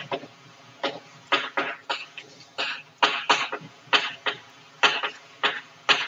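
Chalk writing on a blackboard: a series of short, sharp chalk taps and scratches, irregular, about two a second, as words are written out.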